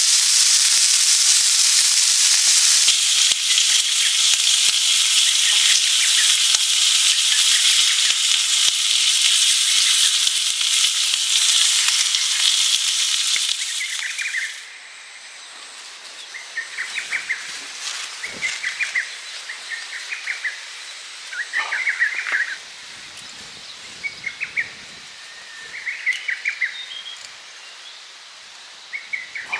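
Food sizzling and crackling in a hot pan, a loud steady hiss that stops abruptly about halfway through. After it, a quieter open-air background with a bird giving short chirping trills every second or two.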